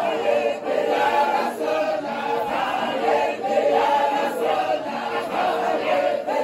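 A large group of men chanting a Sufi devotional song together at a dahira, many voices carrying the melody at once without a break.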